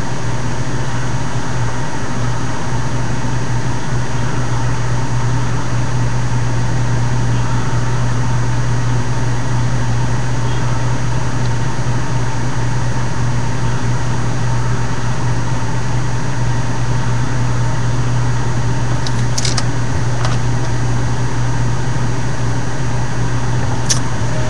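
A steady low drone that does not change in level or pitch, with two brief clicks near the end.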